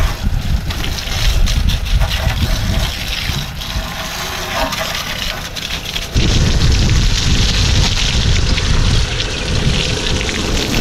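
Water from the wash-bay hose gushing and splashing, with heavy wind buffeting the microphone; the sound changes abruptly about six seconds in.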